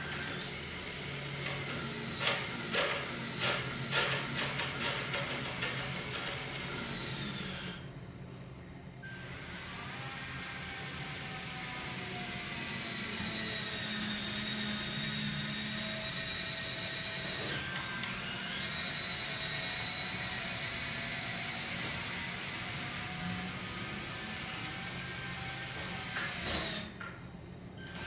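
LEGO Power Functions electric motors whining through plastic Technic gearing as the bridge launcher hauls in and raises the scissor bridge, with a quick string of sharp clicks a few seconds in. The motors stop briefly about eight seconds in, then run again with the whine's pitch slowly sagging and recovering, and stop once more near the end.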